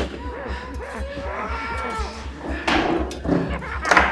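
Wavering, pitch-bending human cries of distress, with two louder sudden bursts near the end.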